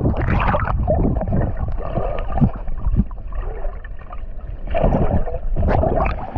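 Water splashing and sloshing close to the microphone in irregular bursts, over a steady low rumble.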